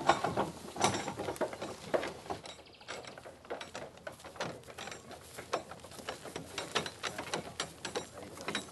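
Wooden farm cart drawn by a pair of yoked oxen rolling along, its wooden body and wheels rattling with irregular clicks and knocks.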